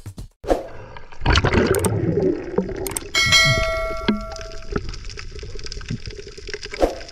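Subscribe-button sound effect: a couple of clicks, then a bell dings once about three seconds in and rings for about a second. Underneath is the water noise picked up by an underwater camera.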